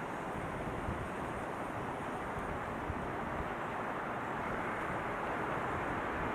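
Steady rush of road traffic going by, slowly growing a little louder toward the end.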